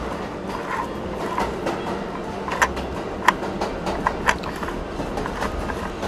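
Die-cast toy subway car rolling along wooden train track: a steady low rumble with scattered sharp clicks.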